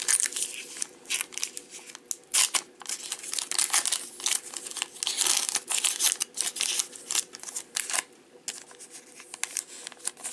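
Foil trading-card pack wrapper crinkling and crackling in the hands as it is torn open and the cards are pulled out, in quick irregular crackles that thin out near the end.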